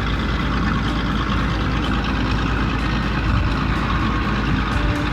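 Tow truck engine running steadily at idle, a low even rumble.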